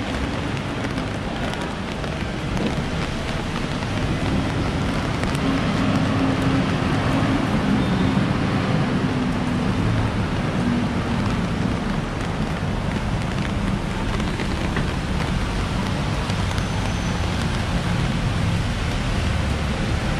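Steady rain falling on wet paving and on an umbrella overhead, with the low rumble of street traffic underneath, a little louder after the first few seconds.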